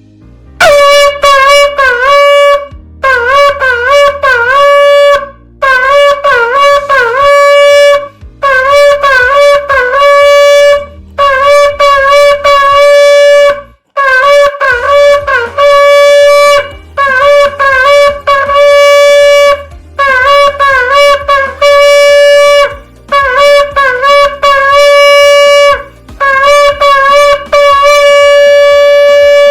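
Shofar blown in about ten loud blasts of roughly two seconds each, each one a broken, wavering note with dips in pitch: shevarim. The last blast is held as a long steady note.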